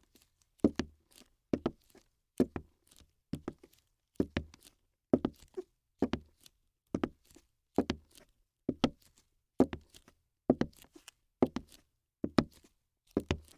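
Slow, even footsteps, about one step a second, each a short thud with a click.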